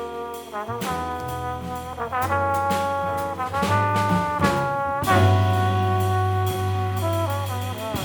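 Live jazz quartet: a trombone plays a melody of held notes joined by short slides, over a walking low bass line, with guitar and drums behind.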